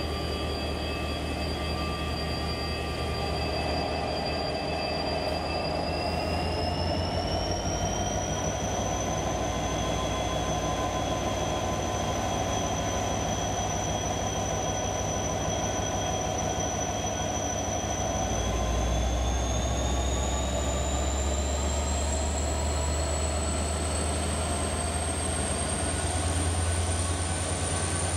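Renfe Class 334 diesel locomotive hauling a Talgo train, its engine running with a steady low rumble and a whine that climbs in pitch about six seconds in and again from around eighteen seconds in, when the rumble also grows louder.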